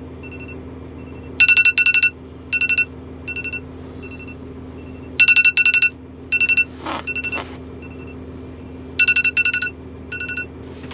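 A mobile phone sounding an electronic alert, clusters of rapid beeps at two fixed pitches repeating every second or two. A steady low hum runs underneath in the truck's sleeper cab.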